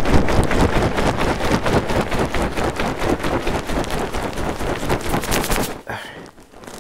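Plastic bag of homemade ice cream mix wrapped in flannel shirts being shaken hard and fast: a dense, rapid rustling and rattling that stops about six seconds in.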